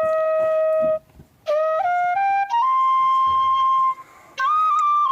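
Background music: a flute playing a slow melody of long held notes that step up and down in pitch, breaking off briefly twice between phrases.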